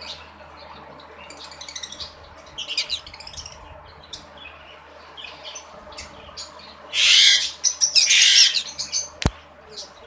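Green-cheeked conures calling: scattered short chirps, then loud harsh screeches about seven seconds in. A single sharp click follows just after.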